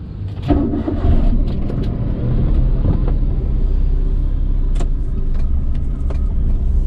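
A car driving along: a steady low engine and road rumble that starts abruptly, with a few light clicks scattered through it.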